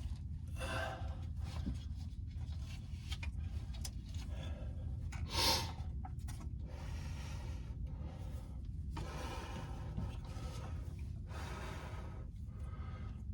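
A person breathing hard in short noisy breaths while working in a cramped spot, over a steady low rumble.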